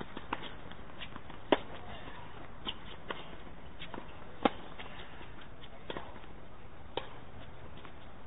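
Tennis rally on a hard court: sharp pops of a tennis ball struck by racket strings and bouncing on the court, about seven in all, two of them much louder than the rest, over a steady outdoor hiss.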